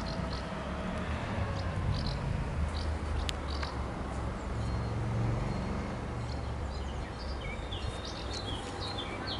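Small birds chirping in short scattered calls over a steady low outdoor rumble, the chirps thickening in the last few seconds.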